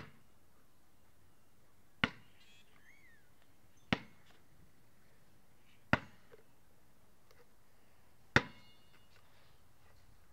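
Basketball bouncing on a concrete driveway: five single sharp bounces about two seconds apart, the last one the loudest, with a short ring after some.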